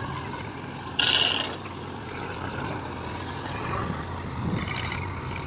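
Heavy diesel machinery engine running steadily. About a second in there is a sudden loud hissing burst that lasts about half a second.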